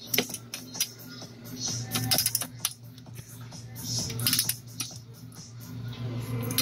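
Socket ratchet clicking in short runs as it is worked on bolts of a Ford 5.4L V8's cylinder head, with a few metallic taps of the tool against the engine.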